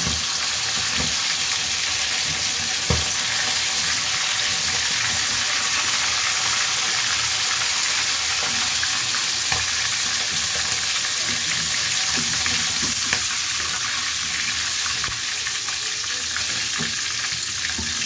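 Whole quail deep-frying in hot oil in a black wok, a steady loud sizzle. A few sharp clicks of the steel slotted spoon against the pan as the birds are lifted out.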